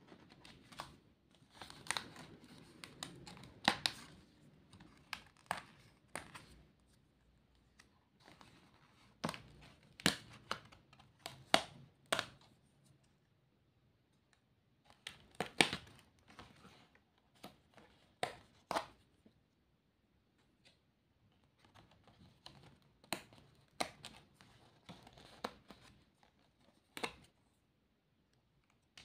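Die-cut paper sticker pieces being pushed out of a card sheet and peeled, with scattered sharp paper snaps and clicks between stretches of soft rustling as the sheet and pieces are handled.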